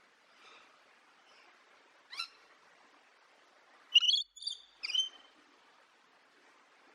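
Parrot calling: a single short call about two seconds in, then a quick run of three or four loud, sharp chirps about four seconds in, over a faint steady hiss.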